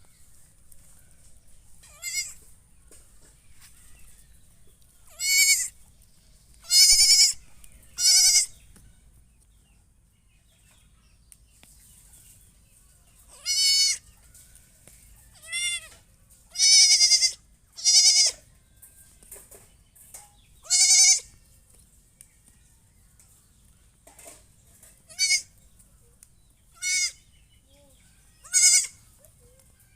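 Goat bleating repeatedly: about a dozen separate loud, high-pitched, wavering bleats with short pauses between them.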